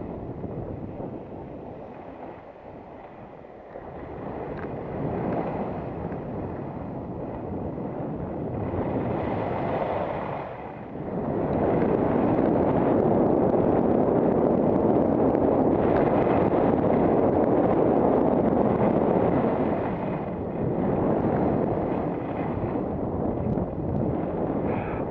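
Wind rushing over the microphone of a camera worn by a downhill skier, mixed with skis scraping and hissing over packed, tracked snow; the rush grows louder for several seconds in the middle as the skier picks up speed.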